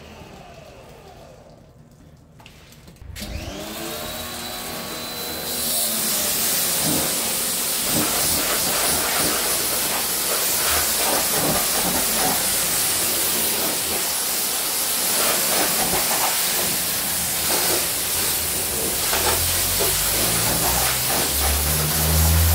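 Parkside PHD 170 D2 pressure washer: its motor winds down and stops, then about three seconds in starts again with a rising whine as the trigger is pulled. The high-pressure jet then hisses steadily against a car's side panels.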